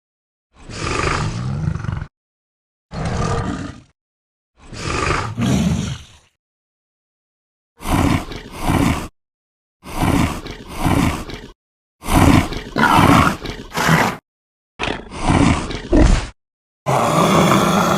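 Bull bellowing sound effects: a run of separate loud bellows, each lasting one to two seconds, with short silences between them. Some calls come in two or three quick pulses.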